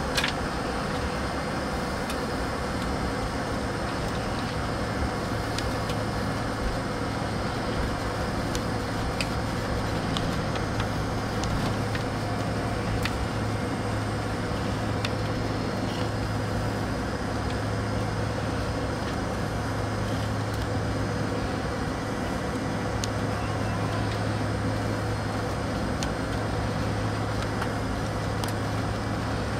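Steady cabin noise of a McDonnell Douglas MD-88's rear-mounted Pratt & Whitney JT8D turbofans at low, idle-taxi power as the jet taxis and lines up on the runway, a constant low drone with a few faint clicks and no spool-up.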